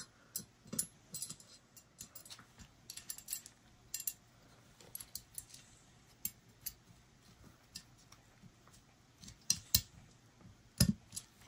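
Small steel parts of a Taurus 856 revolver, the trigger and transfer bar, clicking and clinking lightly against each other and the frame as they are fitted together by hand. The clicks are faint and irregular, with one louder click near the end.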